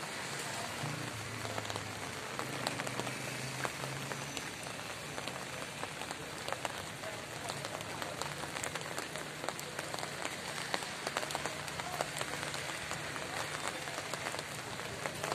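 Steady rain falling onto hard surfaces: an even hiss full of many small, quick drop ticks. A faint low hum sits underneath.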